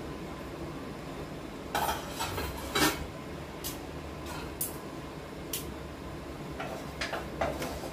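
Steel kitchen utensils clinking against a pot and plate: a few separate clinks, then a quicker run of them near the end.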